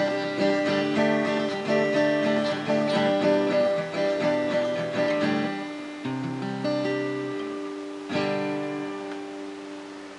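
Acoustic guitar being strummed and picked in a steady rhythm, with the notes thinning out after about five seconds. A final chord about eight seconds in rings out and fades as the piece ends.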